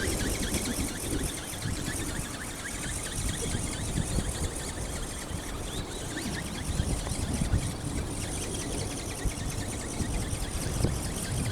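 Strong wind buffeting the microphone: a gusty low rumble over a steady rushing hiss.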